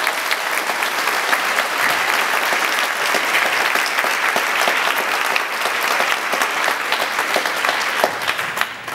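Audience applauding: dense, steady clapping from a crowd that thins out near the end.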